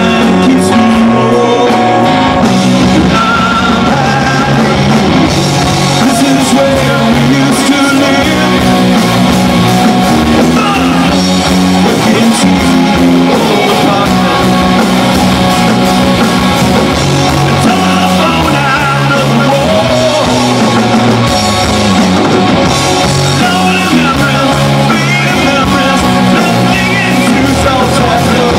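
A live rock band playing loud, with electric guitars, bass guitar and a drum kit, and a man singing lead.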